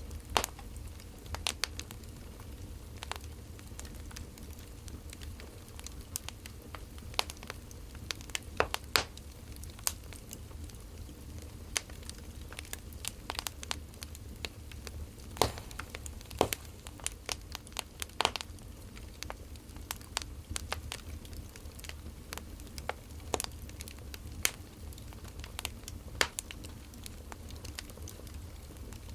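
Burning firewood crackling, with sharp pops at irregular intervals over a low, steady rumble.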